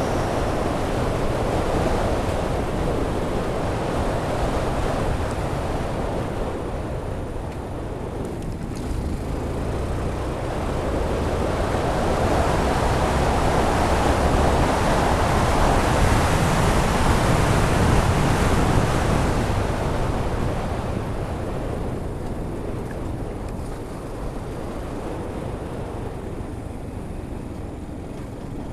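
Wind noise rushing over a Freedconn R1 helmet camera's microphone on a moving motorcycle, a steady roar that the deadcat muffler does not stop at speed. It grows louder toward the middle and eases off near the end.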